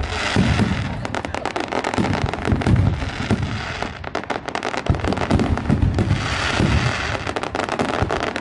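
Aerial fireworks bursting in a dense barrage: a rapid string of bangs and heavy crackling that thins briefly about halfway through, then builds again.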